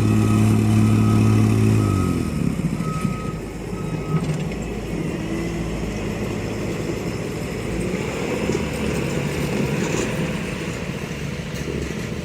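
Heavy equipment engine running loudly, easing off about two seconds in to a rougher, lower rumble. A backup alarm beeps a few times in the first four seconds.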